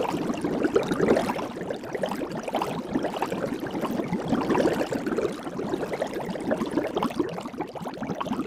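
Soap bubbles in soapy water bubbling and gurgling without pause: a dense, steady stream of small bubble pops.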